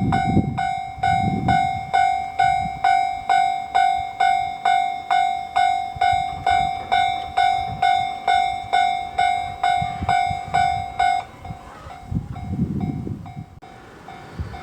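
A Japanese level-crossing warning bell rings in even strikes about twice a second. About eleven seconds in it drops sharply in volume and keeps ringing quietly. Low rumbles come near the start and again near the end.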